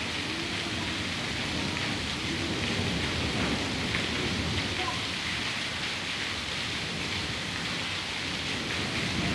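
Very heavy rain pouring down: a dense, steady hiss of drops hitting surfaces, with a low rumble underneath that swells a little around the middle.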